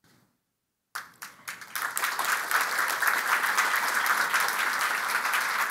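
Audience applause: a few scattered claps about a second in, quickly building into steady, full applause.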